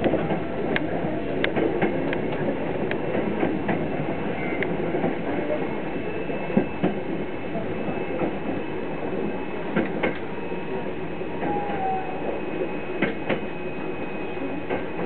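Inside a Hankyu electric train car under way: the steady running rumble of the car, with scattered sharp clicks and knocks from the wheels and car body.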